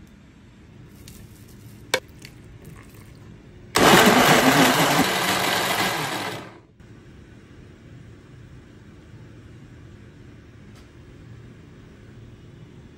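Countertop blender running, puréeing plantain chunks with water and spices: it starts suddenly a few seconds in, runs for nearly three seconds and stops. A single sharp click comes shortly before it.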